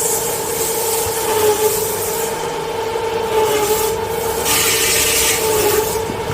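Double-channel paper log saw running with a steady whine, and a hissing rasp about four and a half seconds in as the blade cuts through a tissue paper log.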